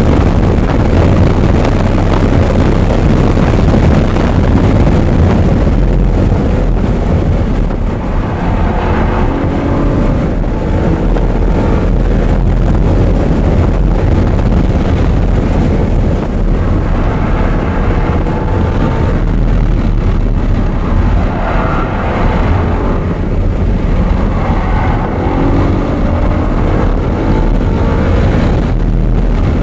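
Audi R8's V8 engine lapping a track, heard from on board under loud, steady wind and road rumble. The engine note rises and falls several times as the car accelerates and slows through corners.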